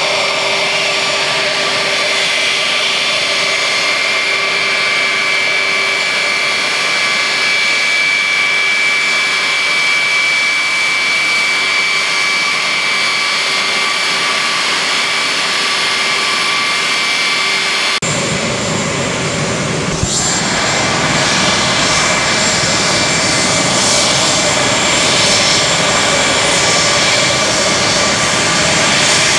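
The four Pratt & Whitney TF33 (JT3D) turbofan engines of a Boeing VC-137C (707) are running at taxi power with a steady high whine. About two-thirds of the way through the sound abruptly becomes fuller and rougher, with more low rumble, and slowly grows louder.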